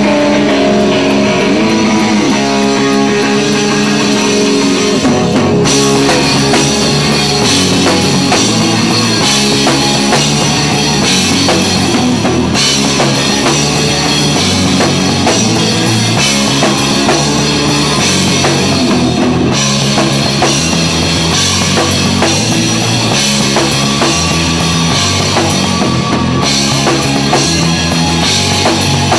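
Live rock band playing: two electric guitars, electric bass and a drum kit, with the cymbals coming in louder about six seconds in.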